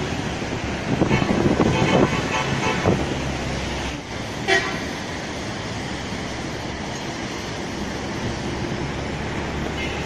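Steady rush of sea waves and wind mixed with street traffic, with a short horn toot about four and a half seconds in.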